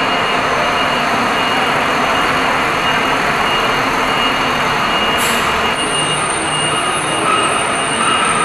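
Loud, steady mechanical noise with a constant high-pitched whine, a second higher whine joining about six seconds in.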